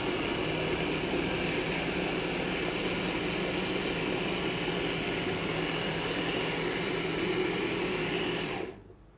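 Electric hand blender running on its chopper bowl attachment, mixing cake batter: a loud, steady motor noise that cuts off sharply near the end.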